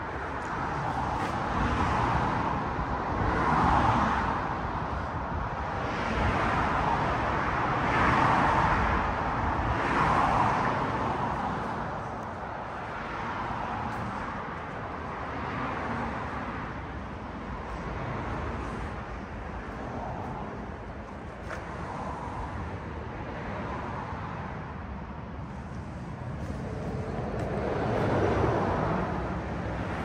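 Road traffic: a steady rush of tyre and engine noise, with cars passing one after another and swelling in turn several times.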